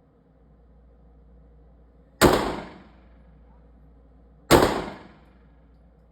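Two pistol shots about two and a half seconds apart, each trailing off briefly.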